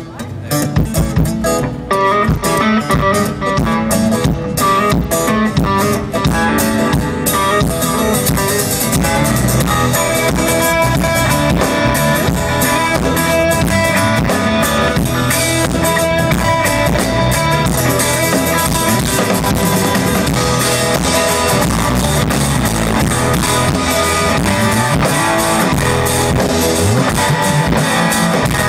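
Live band playing without vocals: guitar over a drum kit, with separate drum hits at first and the fuller band sound filling in after about eight seconds.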